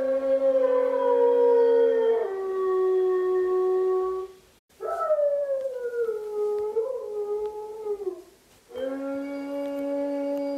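Recorded gray wolves howling, played through a smart speaker. The howls are long and overlap: a lower and a higher one held together, then a single howl, then after a short break a long howl sliding down in pitch, and after another break two held together again.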